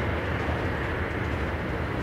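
Freight train of container wagons rolling past on the rails: a steady rumble of wheels on track as the last wagons go by.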